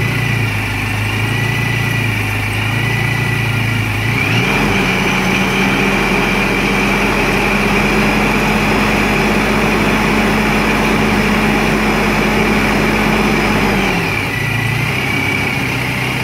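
Freshly tuned-up truck engine idling, then about four seconds in raised by hand at the throttle to a steady fast idle held for about ten seconds, before dropping back to idle near the end. A faint high whine rises and falls with the engine speed.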